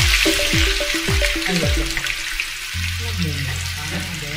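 Chopped red onion frying in hot oil in a wok, a steady sizzle as it is pushed in from a wooden board. Background music plays along with it.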